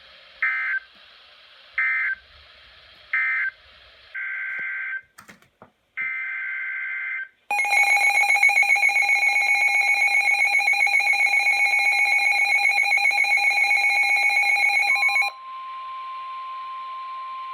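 Emergency Alert System signalling over weather radio. Three short buzzy digital data bursts of a SAME header come first, then two longer bursts, then the loud two-tone EAS attention signal for about eight seconds. A steady, quieter single alert tone follows for about three seconds, over a background of radio hiss.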